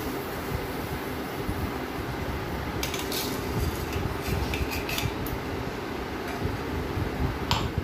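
Light clinks of stainless-steel bowls and the rattle of roasted chana dal being picked up and dropped by hand, in a cluster about three to five seconds in and once more near the end, over a steady background hum.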